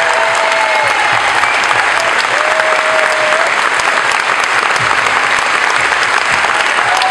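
Audience applauding steadily and densely.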